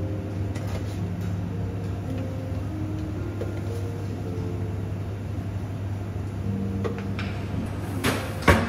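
Steady low hum of shop equipment at a takeaway food counter, with faint tones drifting over it. A couple of sharp clatters come near the end.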